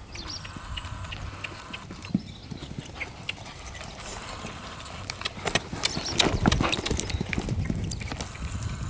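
Pony's hooves cantering on a sand arena, dull irregular thuds, growing louder and denser about six seconds in.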